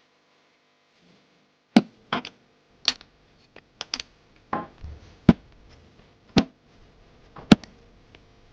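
Wooden pieces knocking and clacking as they are handled on a workbench: about ten sharp, irregular knocks, starting a couple of seconds in.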